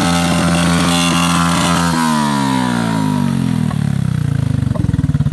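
Underbone motorcycle engine held at high revs, then the throttle is let go about two seconds in. The revs fall away over a couple of seconds and settle near the end into a slow, lumpy idle with separate exhaust pulses.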